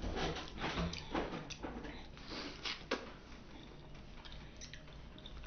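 Wet chewing and mouth clicks of someone eating fruit: a quick run of short, irregular clicks over the first three seconds, then fainter and sparser.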